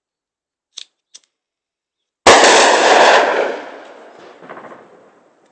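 A sudden, very loud explosion about two seconds in, its boom rolling on and fading away over the next few seconds, with a smaller swell as it dies down. Two faint clicks come before it.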